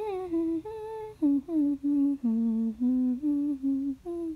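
A voice humming a wordless tune: a string of about a dozen short, separate notes stepping up and down in pitch.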